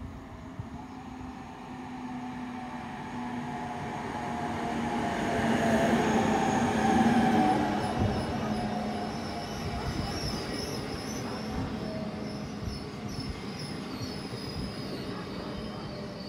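Electric locomotive-hauled passenger train arriving alongside the platform. The locomotive passes loudest about six to seven seconds in, then the coaches roll by slowing down, with a high wavering squeal of brakes and wheels.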